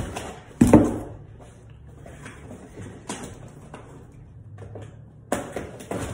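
Cardboard box being handled: a sharp knock just under a second in, then scattered rustling and light taps, with another cluster of knocks near the end.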